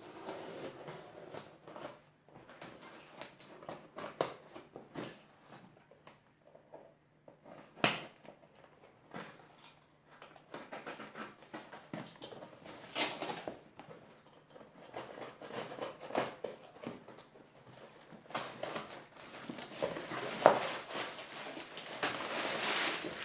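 Hands opening a mailed parcel: packaging rustling and crinkling, with scattered light knocks and clicks. The rustling grows louder and denser in the last few seconds.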